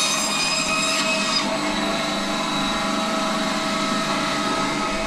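Electric bone-cutting machine in a butchery running steadily, a constant motor whine; some of its higher tones change about a second and a half in.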